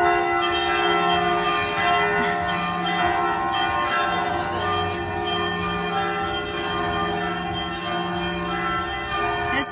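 Several Russian church bells ringing together, struck again and again so that their tones overlap into a continuous peal.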